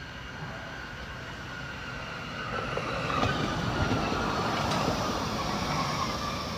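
Low-floor electric tram passing close by: a rumble of wheels on the rails that grows to its loudest as it goes past, with an electric whine that falls slightly in pitch.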